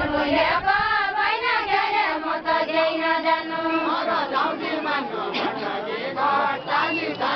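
A line of women singing a Deuda folk song together in chorus, with long held notes and no drum beat.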